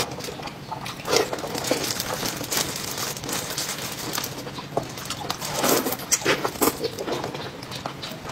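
Close-miked mukbang eating sounds: wet chewing and lip smacks on fatty pork belly and lettuce, irregular crackly clicks with louder clusters about a second in and again near the middle-to-late part.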